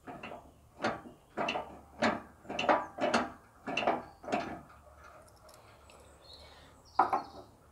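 A steel bolt with washers being handled and fitted against a wooden-slatted frame: a run of short knocks and clinks about twice a second, then one sharper knock near the end.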